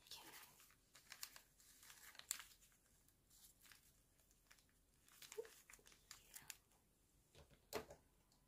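Faint rustling and crinkling of a kraft-paper package being handled as jute twine is pulled and knotted around it, with scattered soft scrapes and taps.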